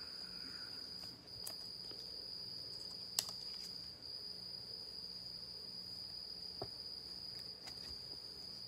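A cricket's steady high-pitched trill runs throughout. Faint clicks and rustles of cards and plastic sleeves being handled sound over it, with one sharper click about three seconds in.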